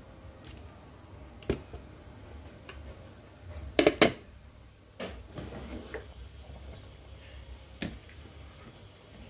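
A few sharp clicks and knocks of kitchen handling around a pot of curry boiling on a gas stove, the loudest a quick double knock about four seconds in, over a low steady rumble.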